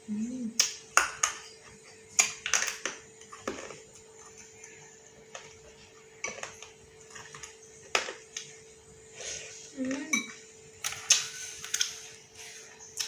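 A spoon or fork clinking and scraping against a dish over and over at an uneven pace while instant noodles are eaten, with a short hummed voice sound near the start and again about ten seconds in.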